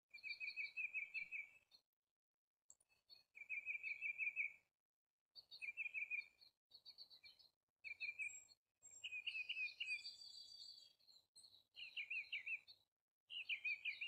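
Songbird singing short, rapid trilled phrases, about seven in a row, each roughly a second long with brief silent gaps between.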